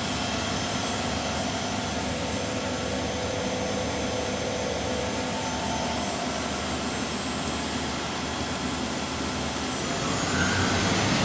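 Spindle of a Clausing Metosa CNC 225 turning center running in high gear at 1500 RPM: a steady mechanical hum with a few steady tones, which gets slightly louder and deeper about ten seconds in.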